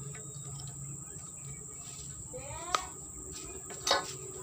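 A plastic seal piece being worked into the end of a metal harvesting-pole pipe: a short rising squeak ending in a click about two and a half seconds in, then a sharper, louder click near the end. Insects trill steadily in the background.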